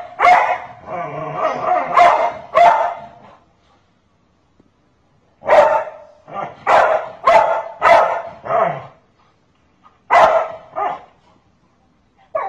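A large dog barking repeatedly in three runs of loud barks with short silent pauses between them. It is barking at a woman who is pretending to hit a child, as a protective warning.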